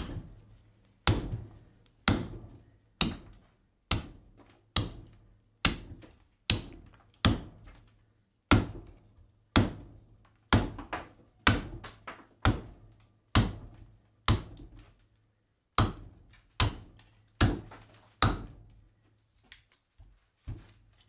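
Hatchet chopping into green black walnut held upright on a wooden chopping block: a steady series of sharp thunks about once a second, the last couple lighter. This is the wood being hewn down to rough out a ladle blank.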